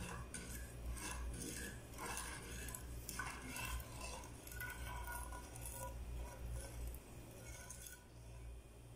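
Metal spoon stirring sugar and water in a small nonstick saucepan, scraping and clinking irregularly against the pan's bottom and sides; it stops about eight seconds in.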